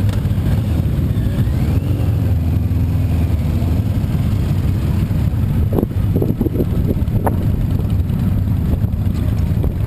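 Harley-Davidson V-twin engine noise, a steady low rumble, with a few short knocks about six to seven seconds in.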